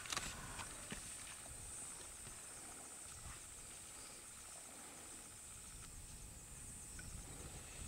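Faint, steady high-pitched insect drone with rapid, evenly spaced ticking, and a few sharp clicks in the first second.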